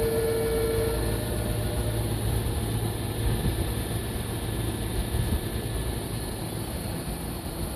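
Steady low hum of a Sotetsu 7000 series electric train standing at the platform, its onboard equipment running. A steady tone stops about a second in.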